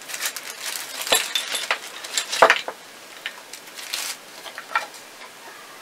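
Small wooden stand parts and a metal screw clinking and knocking together as they are taken out of a clear plastic bag, with the bag rustling. Two louder knocks come about one and two and a half seconds in.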